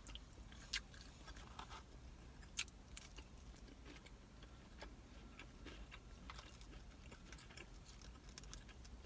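A person chewing food close to the microphone: faint, irregular mouth clicks and smacks, with a couple of sharper clicks in the first three seconds.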